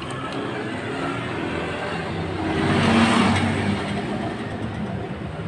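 Motor vehicle engine noise that swells to a peak about three seconds in and fades again, as a vehicle drives past, over a steady low engine hum.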